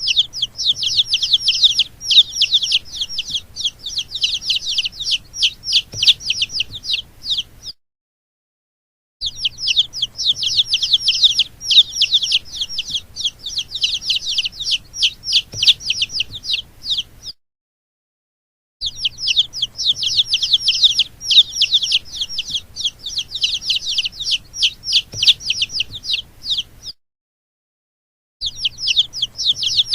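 Baby chicks peeping: a dense run of rapid, high-pitched, falling peeps, many a second, in stretches of about eight seconds broken by short silences.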